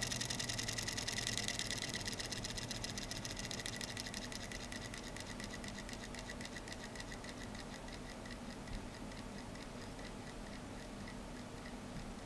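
Toy steam engine running on air from an aquarium air pump, its exhaust puffing as a fast, even ticking. The ticks gradually slow and get quieter as the engine winds down.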